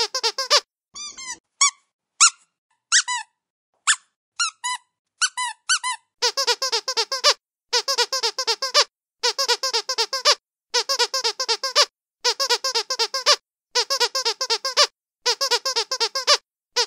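Squeaky dog toy being squeezed: a short quick run of squeaks, then single squeaks spaced apart, then from about six seconds in, runs of rapid squeaks lasting about a second each, repeating every second and a half.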